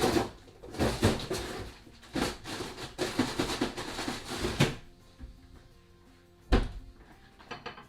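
Plastic bag of frozen oven chips rustling and knocking as it is handled and put into the freezer, then a freezer door or drawer shut with a single thump about six and a half seconds in. Faint background music underneath.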